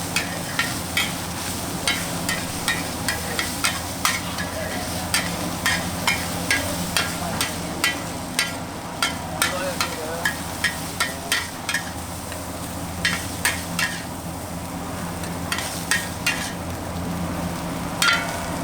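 Fried rice being stir-fried in a wok. A metal spatula clanks and scrapes against the wok about twice a second over steady sizzling, pausing briefly about two-thirds of the way through.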